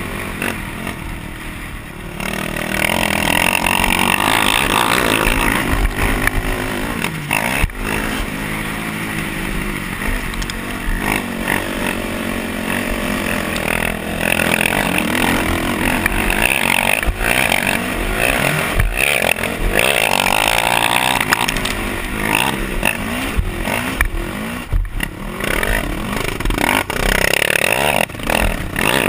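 Racing quad's engine run hard, its pitch rising and falling again and again as the throttle opens and closes and it shifts through the gears, heard close up from on board.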